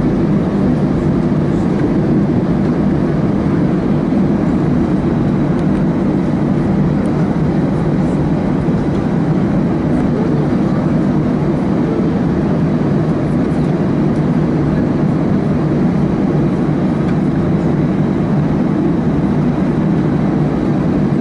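Steady engine and airframe rumble heard inside the cabin of an Airbus A320 taxiing on the ground after landing, its engines at idle.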